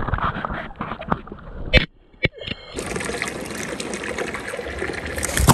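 Shallow lake water splashing and trickling around a landing net, with two sharp knocks a little under two seconds in. After that comes a steady, even water-like hiss.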